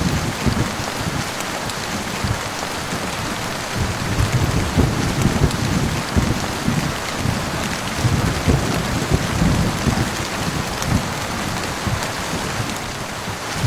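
Heavy rain falling steadily, with low thunder rumbling underneath in waves that swell and fade several times.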